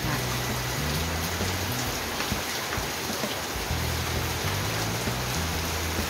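Heavy rain falling steadily with no wind, splashing on the concrete yard and streaming off the roof edges, as a dense, even hiss.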